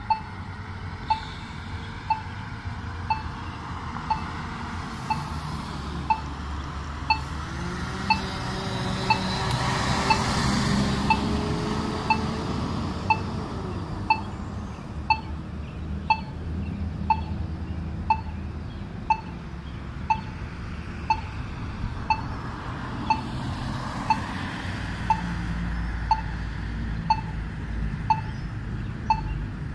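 Accessible pedestrian signal's locator tone at a crosswalk: a short, sharp beep repeating about once a second, which marks the push button while the walk phase is off. Road traffic runs underneath, with a vehicle passing about ten seconds in.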